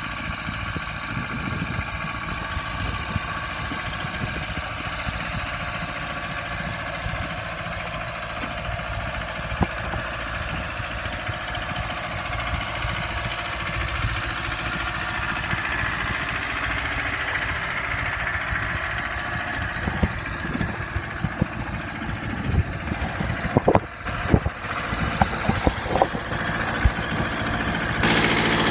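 Ford 1100 compact tractor's small diesel engine idling steadily, growing louder as the close-ups reach the engine bay. A few sharp knocks and clicks come over it in the last several seconds.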